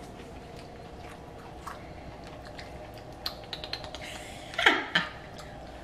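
People chewing food, with small clicks of a fork against a plate and bowl scattered through the second half. Two short, louder sounds come a little over four and a half seconds in.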